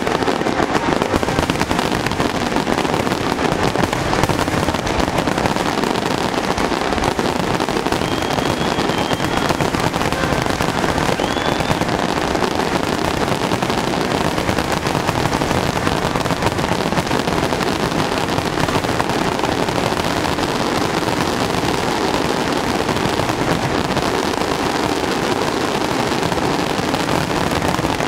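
Fireworks display in a dense barrage: rapid, overlapping bursts and crackling with no pause, loud and steady throughout. A couple of faint short whistles rise above it near the middle.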